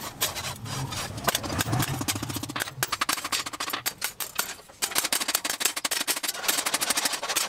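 Hand hammer striking a cold steel knife blank cut from a chainsaw bar on a post anvil, a run of sharp metallic blows and taps. A low engine-like drone runs under it for the first few seconds.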